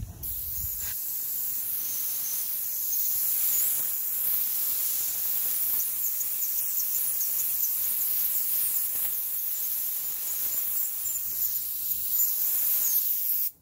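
Suction-feed air spray gun hissing steadily as it sprays contact adhesive onto wood paneling. The spray cuts off suddenly near the end.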